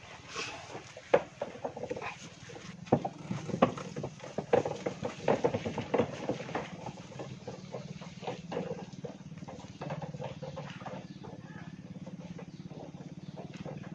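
Wooden handcart loaded with bananas rattling and knocking as it is pushed along a grassy path, the clatter loud and busy in the first half and fading as the cart moves away. A steady low hum runs underneath.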